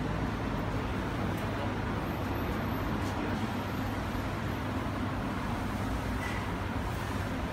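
Steady urban street noise: a continuous low rumble and hiss with no distinct events standing out.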